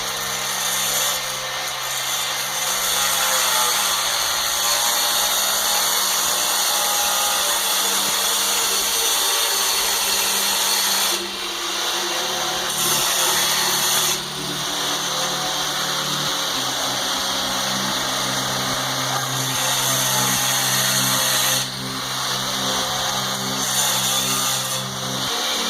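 A power tool running continuously under load, with a few brief dips where it eases off.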